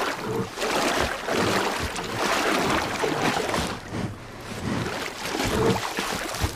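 Water splashing and sloshing unevenly as a large brown bear wades through the shallows at the lake's edge.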